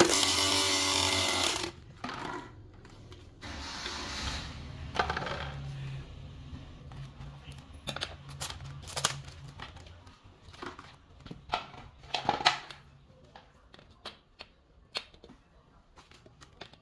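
A small electric motor of a homemade plastic-bottle vacuum cleaner runs loudly and cuts off suddenly under two seconds in. It is followed by a short rushing noise and then a scatter of light clicks and knocks as empty plastic bottles are handled and set down on a table.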